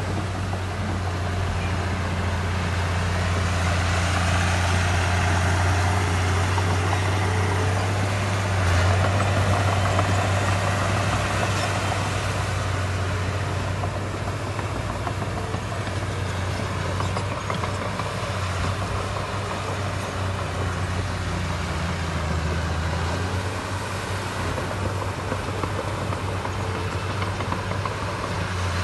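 Heavy diesel engine of earthmoving machinery running steadily with a low hum, growing louder from about four seconds in and easing back after about twelve seconds.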